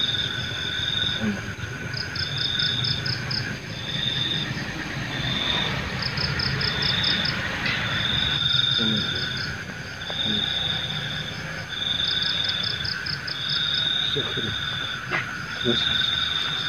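Night insects calling: a high held note alternating with a rapid pulsed trill, the pattern repeating about every two seconds, over a steady lower insect drone.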